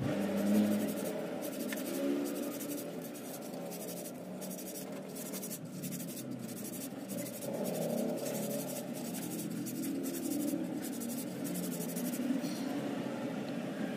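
Rubber toothed drive belt from an electric scooter rubbed by hand on sandpaper in repeated scraping strokes, sanding down its width so it fits the stand mixer's pulley.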